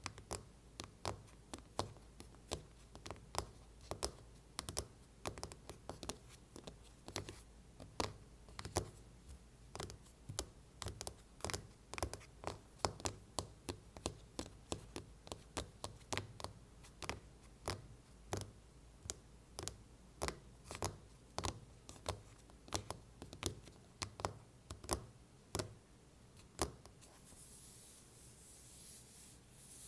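Quick tapping on an iPhone case: sharp, irregular clicks, about two or three a second. Near the end a soft scratching hiss joins in.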